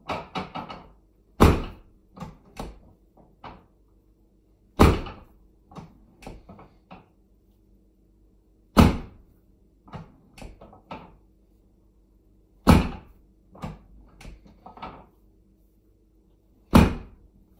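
Five loud thuds about four seconds apart, each followed by a few softer knocks, from the thrusts of a chiropractic adjustment on a person's body.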